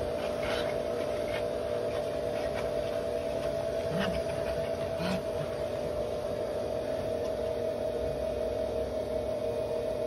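Pet blow dryer running steadily through its hose and nozzle, a constant motor hum and blowing air. A few brief, sharper sounds stand out over it.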